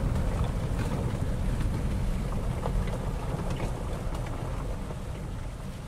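Wind rumbling on the microphone, a low unpitched buffeting that eases off toward the end, with a few faint ticks above it.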